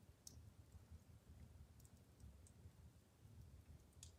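Near silence with a handful of faint, sparse crackles from a wood fire burning in a fireplace, over a low room hum.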